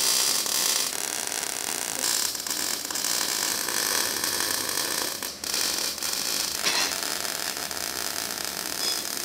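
MIG welding on thin rusty sheet steel: the arc's steady crackling hiss, with a short break about five seconds in.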